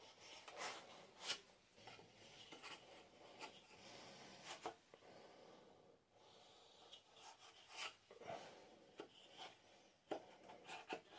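Faint wood-on-wood rubbing as a hand-cut wooden tenon is pushed and slid into its open mortise by hand to test the fit, with a few sharp light clicks and knocks scattered through it.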